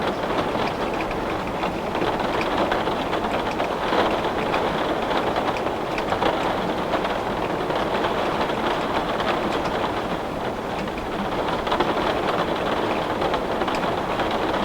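Heavy rain falling on window glass: a steady, dense hiss of rain with many small drop ticks.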